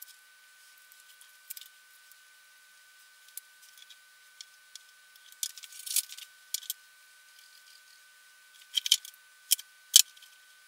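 Small plastic and metal parts being handled on a workbench: scattered light clicks and taps. The loudest are a quick cluster of clicks about nine seconds in and a single sharp click a second later, as parts are fitted together.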